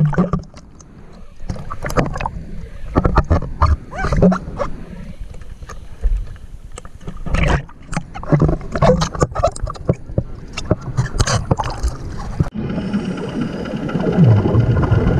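Muffled water splashing and knocking, as picked up by a camera moving in and out of the water, with irregular loud knocks. About twelve seconds in it changes suddenly to a steady hum under a continuous hiss.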